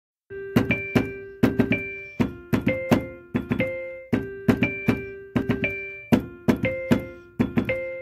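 Music: sustained pitched notes over a steady beat of sharp percussive hits, starting just after the opening.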